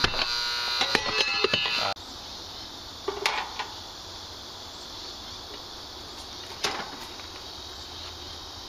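An AC condenser's contactor buzzing steadily, its contacts fouled by ants so it hums instead of pulling in cleanly; the buzz cuts off abruptly about two seconds in. A quiet background follows with two brief rattles, one in the middle and one later.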